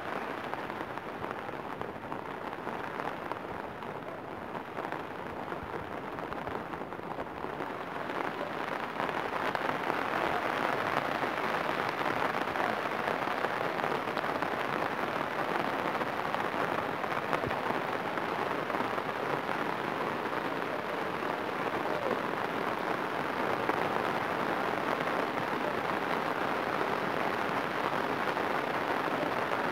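Heavy rain falling on flooded fields and standing water: a steady hiss that grows louder about eight seconds in and then holds.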